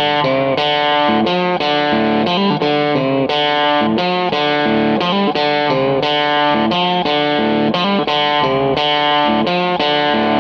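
Background instrumental music led by a guitar with effects, playing a steady run of notes about three a second.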